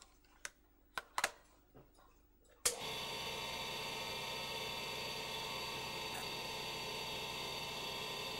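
A few light clicks, then a sharp click about two and a half seconds in as the KD50 lathe's electric motor is switched on. The motor then runs with a steady, even hum made of several steady tones, belt-driving the grinding spindle and the spindle that holds the watch ratchet wheel.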